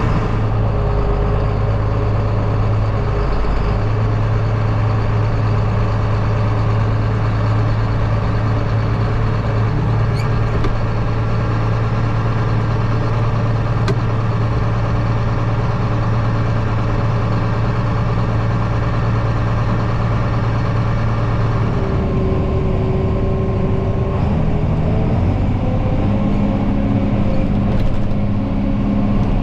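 A farm vehicle's engine running steadily under way, a loud constant hum. Its note shifts about two-thirds of the way through, and again shortly after.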